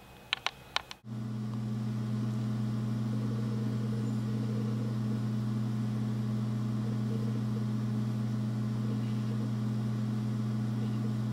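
A few sharp clicks, then a loud, steady low hum that starts abruptly about a second in and holds unchanged.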